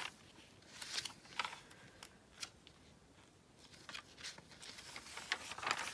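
Glossy magazine pages being handled: faint, scattered rustles and soft brushing taps as hands slide over and smooth the paper, with a louder rustle near the end as a page is moved.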